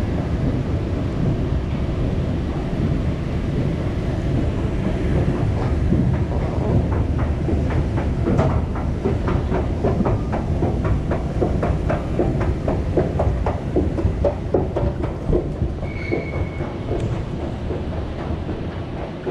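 Escalator running: a steady low rumble, with a rapid, even clicking of the steps from about eight seconds in that dies away a few seconds later.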